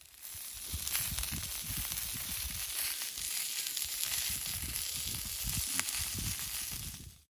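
Sliced onions and steaks frying on a butane twin camp stove, sizzling steadily with a crackle about a second in and another near the end. Low, gusty buffeting runs underneath.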